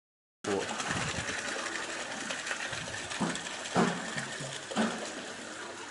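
Soybean washing machine for tempe running: a steady mechanical churning noise, with three louder knocks around the middle.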